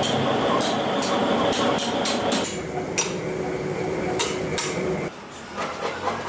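Workshop clatter: a quick series of light hard clinks and knocks over a steady machine noise, with the background changing abruptly twice.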